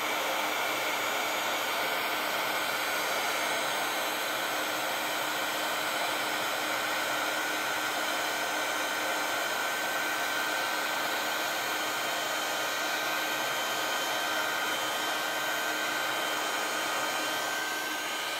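Stampin' Up! embossing heat tool blowing hot air, a steady fan hiss with a faint high whine. It is melting silver embossing powder on stamped cardstock during heat embossing.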